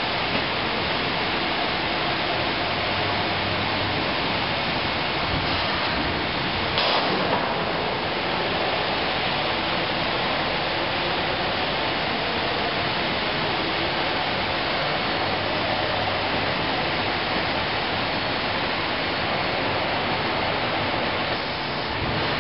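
Steady rushing noise of woodworking production-line machinery running, with a brief louder burst about seven seconds in.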